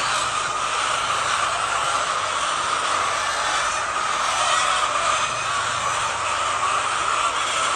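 Steady din of a large flock of laying hens in a poultry shed, many birds calling at once in a continuous even chatter.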